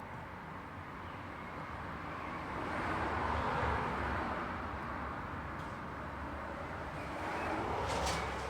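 Road traffic: a steady rush of tyre and engine noise that swells as vehicles pass, once about three seconds in and again near the end, where there is also a brief high hiss.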